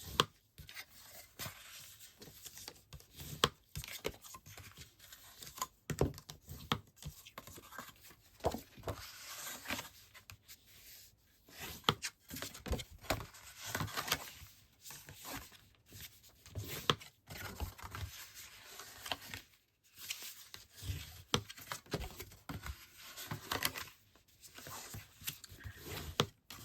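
Scored cardstock being folded along its score lines and burnished flat: irregular papery creasing and rubbing strokes with occasional sharp taps.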